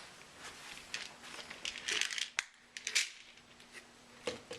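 Someone rummaging for a pill: crinkling, rustling and scattered sharp clicks of things being handled, with a faint steady hum underneath from about a second in.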